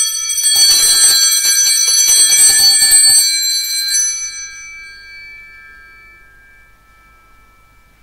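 Cluster of small altar bells shaken at the elevation of the host, signalling the consecration. They rattle for about three seconds, then ring out and fade away.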